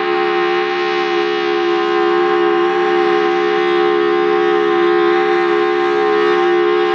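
Federal Signal Thunderbolt 1003 civil defense siren sounding its steady alert signal: a loud, held tone of a few low pitches at an even level.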